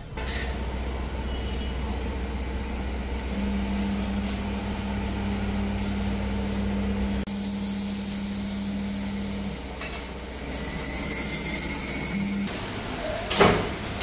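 Tyre-workshop machinery humming steadily, with a steady low tone through the middle.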